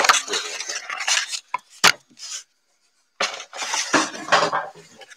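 Cardboard shipping boxes being handled and shifted against one another: irregular scraping and clattering, a sharp knock about two seconds in, then a short pause before the handling starts again.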